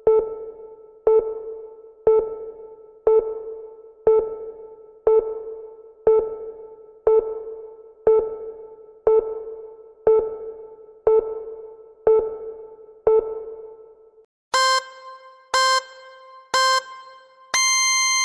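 Workout interval timer ticking off the seconds with a soft, decaying chime once a second. Near the end come three short, higher beeps a second apart and then a longer final beep, the countdown that marks the end of the interval.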